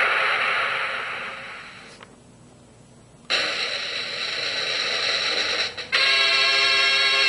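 Electronic sound machine playing its canned sound effects one after another: a hiss that fades away, a short pause, another hissing effect, then a steady buzzy effect of many even tones.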